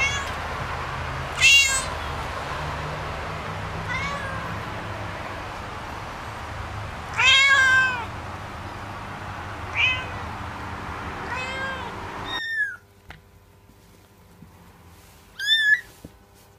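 A cat meowing over and over, about five meows, the loudest and longest about seven seconds in, over a steady background hiss. After a sudden cut near the end, a small kitten gives high, thin mews, twice.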